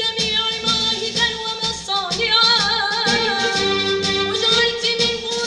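Mixed choir singing over an instrumental accompaniment with a steady beat; about two seconds in, a voice carries a wavering, ornamented melodic line.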